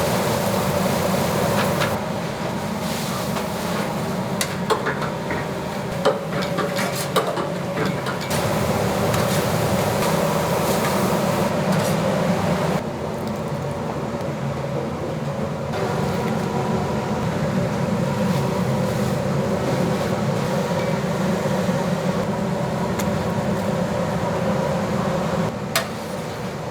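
Food-factory kitchen ambience: a steady hum of machinery and ventilation with scattered clinks and knocks of utensils, trays and dishes being handled.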